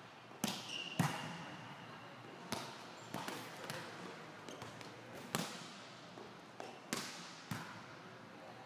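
Volleyball impacts: about eight sharp, irregularly spaced hits of a ball on a hard gym court floor and on a player's arms, each echoing in a large hall. A brief high squeak comes about half a second in.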